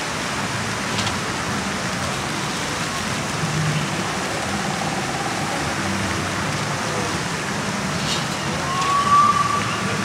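Steady outdoor ambience: an even rushing noise with faint murmur of people, a few light clicks, and a brief high tone near the end, the loudest moment.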